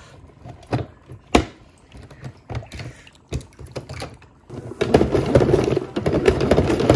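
Hard plastic clicks and knocks from a Monster Jam Megalodon Monster Wash toy playset as a toy monster truck is set into its water-filled drum. About five seconds in, the hand crank starts turning the drum: fast plastic clicking with water churning inside.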